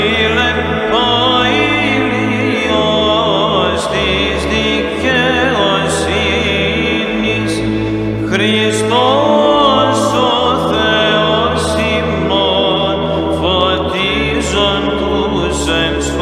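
Byzantine chant: a man's voice sings a slow, ornamented melismatic hymn line over a low sustained drone (ison) that shifts to a new note every few seconds.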